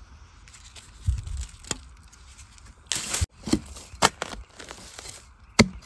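Machete and digging tool chopping into soil and roots at the base of a wild bamboo shoot, with crunching of dry bamboo leaf litter: a couple of dull thumps, then a noisy burst about three seconds in and a run of sharp chops.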